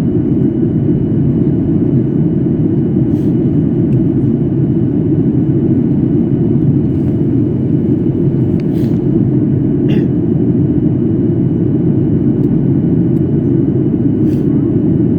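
Airliner cabin noise on the approach to landing: a loud, steady rumble of engines and airflow, with a few faint ticks.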